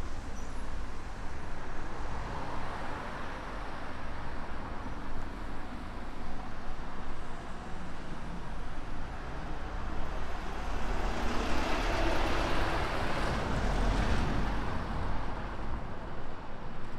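Road traffic passing on a wet road, a steady tyre-and-engine noise, swelling to its loudest about two-thirds of the way through as a curtain-sided lorry drives past close by.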